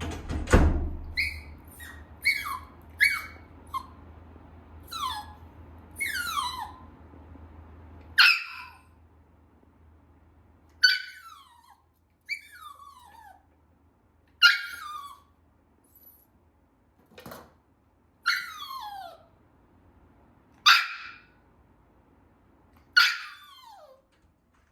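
Tiny toy poodle puppy crying: a string of high-pitched whines and yelps, each sliding down in pitch, repeated every second or two with some longer drawn-out cries. A single knock sounds about half a second in.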